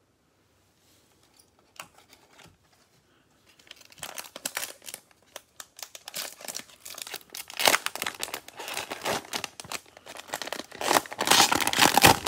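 Plastic wrapper of a Panini Prizm football cello pack being torn open and crinkled in gloved hands: a dense crackling that starts about four seconds in and is loudest near the end.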